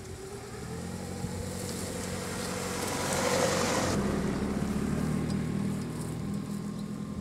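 Toyota Raum XZ10 hatchback driving along a dirt track, with engine and tyre noise. The noise grows as the car approaches and passes close about four seconds in, then settles into a steady low engine hum as it pulls away.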